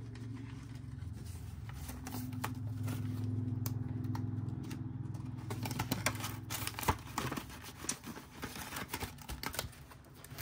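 Paper banknotes and an envelope being handled: soft rustling and scattered light clicks, busier in the second half, over a low hum that fades out about two-thirds of the way through.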